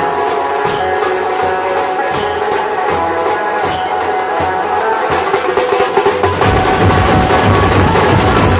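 Dhol tasha drumming under a melodic tune, with a sharp high stroke about every second and a half. About six and a half seconds in, the drumming turns heavier and denser.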